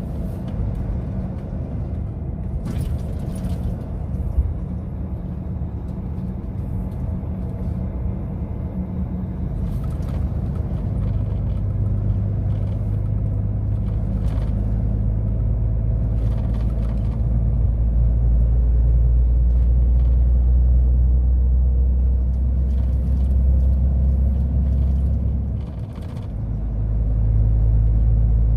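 Volvo container truck's diesel engine running under way, a steady low rumble that grows louder through the middle. The engine note dips briefly near the end, then rises again.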